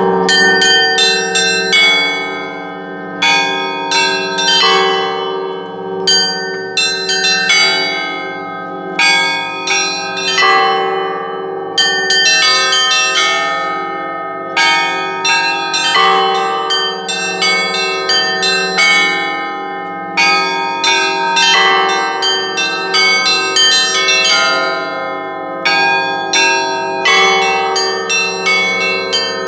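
A set of church bells rung together in a repeating pattern. Quick runs of small, high bells play over the heavier bells, with a louder full strike about every five to six seconds. The bells' tones ring on between strokes.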